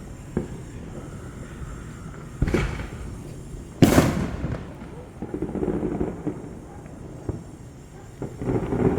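Fireworks going off: a series of bangs and pops, the loudest about four seconds in, each followed by a scattered crackle.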